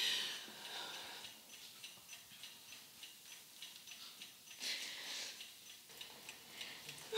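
A clock ticking steadily in a quiet room, with a breathy sniff right at the start and another about five seconds in.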